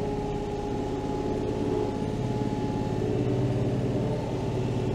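A Kioti tractor's diesel engine runs steadily under load as it tows a chain harrow across the field. It grows a little louder about two seconds in.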